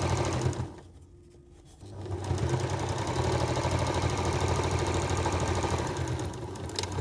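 Domestic electric sewing machine running as it top-stitches through layers of cotton and oil cloth. It stops about half a second in, pauses for about a second, then stitches steadily for about five seconds before stopping near the end.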